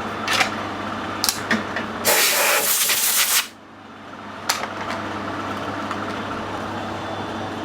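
A blast of compressed air from an air blow gun, about a second and a half long, cutting off sharply, clearing swarf while a lathe tool insert is changed. A few light clicks and a steady machine hum run around it.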